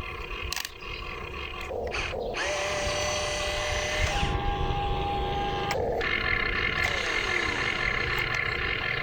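Electric motors of a radio-controlled construction machine whining steadily; the pitch steps up about four seconds in and the sound gets louder partway through.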